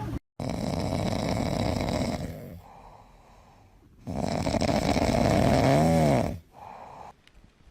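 Snoring: two long, rasping breaths of about two seconds each, the second ending in a short whistle that rises and falls.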